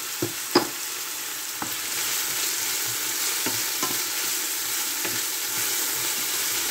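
Sliced onions sizzling in hot oil in a stainless steel frying pan as they soften toward brown, stirred with a wooden spoon. The spoon knocks and scrapes against the pan now and then, loudest about half a second in.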